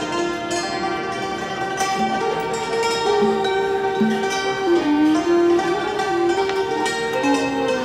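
Khim, a Thai hammered dulcimer, struck with two mallets, its notes ringing in a live ensemble with a long held melody line that slides between pitches.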